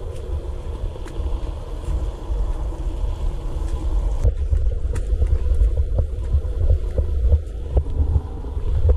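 Low, uneven buffeting rumble on a handheld camera's microphone, with a few faint ticks in the second half.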